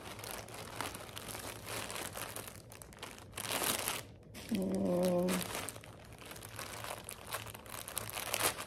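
Plastic mailer bag crinkling and rustling as a sweatshirt is handled and pulled out of it, with a brief low hum about halfway through.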